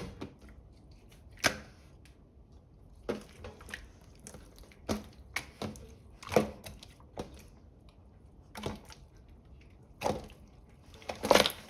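Clear slime being squeezed and pressed by hand, giving scattered sticky clicks and small air-bubble pops, about a dozen of them at uneven intervals, the loudest near the end.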